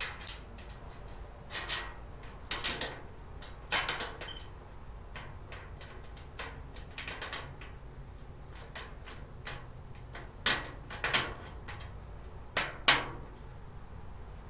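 Irregular clicks, clacks and knocks of storage-cart parts being handled and fitted together during assembly. The loudest knocks come in pairs, about ten seconds in and again near the end.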